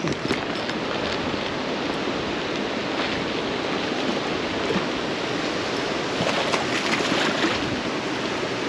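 Steady rush of flowing creek water, an even hiss without change.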